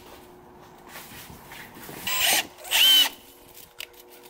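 Cordless drill run in two short bursts about two seconds in, its motor whining up and back down, as the bit is worked into a hole in a panel in a car's footwell.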